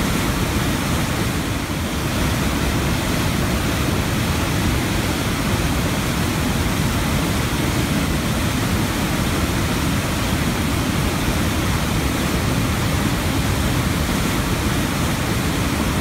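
A swollen, muddy waterfall: floodwater rushing over a low rock ledge and churning through the rocks below in a steady, unbroken rush of water noise.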